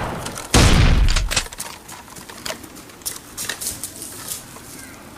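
A loud bang about half a second in that dies away over about a second, followed by scattered short clicks and knocks.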